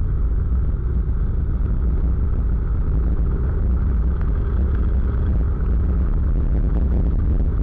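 Motorcycle riding at steady cruising speed on an open road: a constant low rumble of engine and wind.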